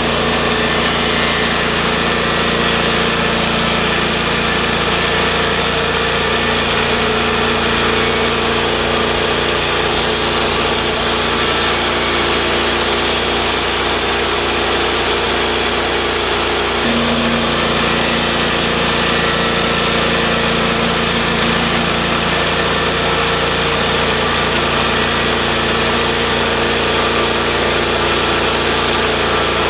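TimberKing 1220 bandsaw mill running steadily, its engine under load as the band blade saws lengthwise through a mesquite log.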